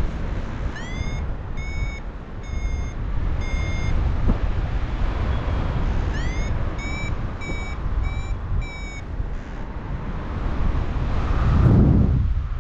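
A paragliding variometer beeping: two runs of four short beeps, each led in by a quick rising chirp. The tone signals the glider is climbing in lift. Steady wind rushes over the microphone throughout and swells in a gust near the end.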